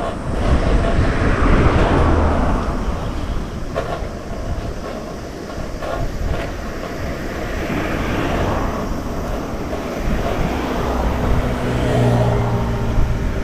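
Road traffic noise heard from a bicycle on the road: a steady rush with vehicles swelling past every few seconds, one engine's hum passing near the end.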